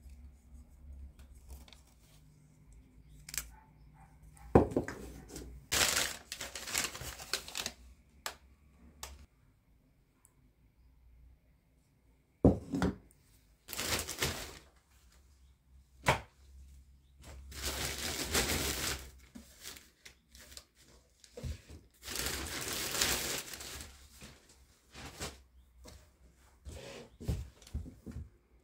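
Household handling noises in a small room: several bursts of noise lasting a second or two each, with a few sharp knocks between them.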